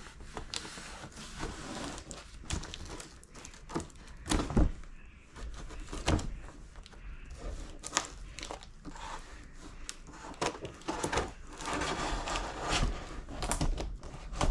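Plastic and cardboard packaging crinkling and rustling as an item is unwrapped and handled, with occasional knocks and taps.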